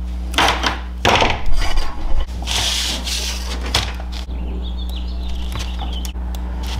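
Hands working wire strippers on thin wires and handling tools on a wooden workbench: a few bursts of rubbing and scraping over the first three seconds or so, then fainter rustling, over a steady low hum.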